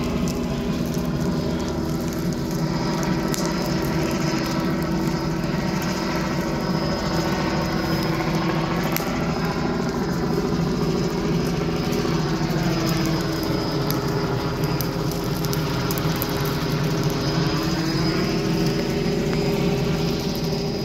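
Helicopter overhead, a steady loud drone made of several pitched tones, which dips lower in pitch for a few seconds past the middle and then rises back.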